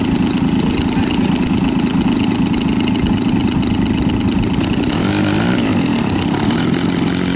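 Large model biplane's engine idling on the ground with its propeller turning: a steady, rapid putter.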